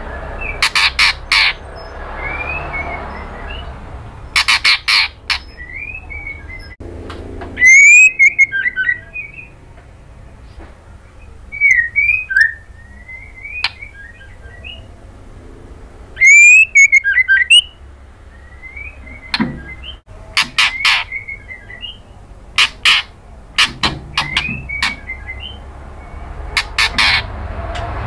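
White-rumped shama calling: short, sliding whistled notes broken by groups of sharp, dry clicks. Two much louder harsh calls come about eight and sixteen seconds in.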